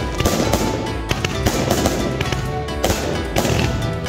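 Festival fireworks crackling and popping in quick succession, heard over loud music with a steady beat.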